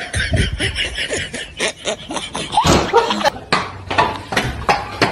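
Laughter, in a quick run of short repeated bursts.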